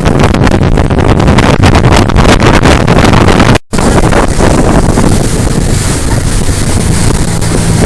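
Motorboat running at speed, with heavy wind buffeting the microphone. A brief dropout comes a little over three seconds in; after it the engine hum is steadier and the wind lighter.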